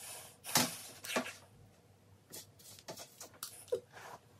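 Several short, scratchy strokes of a hairbrush being worked through thick, curly hair, with a louder knock of handling about half a second in.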